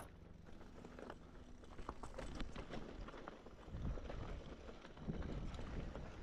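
Irregular clicks and crunches of movement over rough ground, over a low steady rumble.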